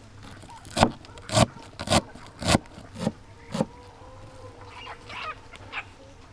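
Chef's knife chopping parsley on a wooden cutting board: about seven sharp chops roughly half a second apart, then a few lighter ones near the end.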